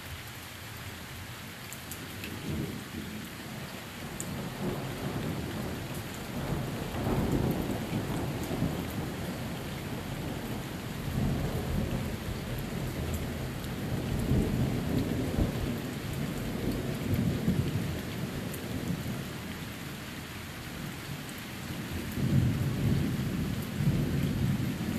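Steady rain falling through a thunderstorm, with thunder rumbling in repeated rolls that swell and fade, the loudest roll near the end.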